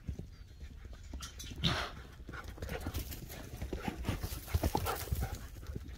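A horse's hooves thudding irregularly on the dirt of a round pen as it moves fast around the rail, with the horse breathing hard close to the microphone.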